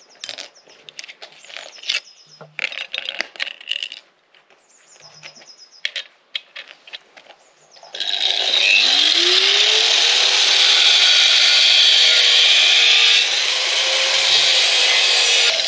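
Scattered light clicks and clatter of tools and a grinder disc being handled, then about eight seconds in an electric angle grinder starts with a rising whine and runs loud and steady, grinding against steel.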